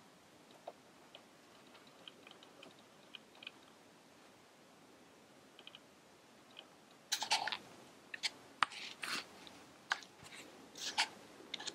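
Quiet background with a few faint high ticks, then from about seven seconds in a run of irregular sharp clicks and crackling rustles.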